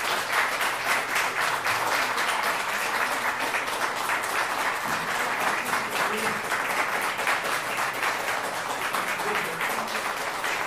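Audience applauding steadily at the end of a live song, with many hands clapping at once.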